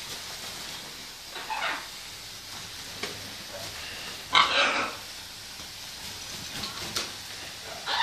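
Pet parrots calling: three short calls, about one and a half, four and a half and eight seconds in, the middle one the loudest.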